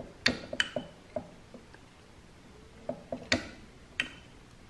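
A handful of sharp clicks and light knocks in two clusters, one near the start and one about three seconds in, some with a brief ring: a switch on the motor's VFD control being flicked. The motor does not start, because no forward/reverse direction has been picked yet.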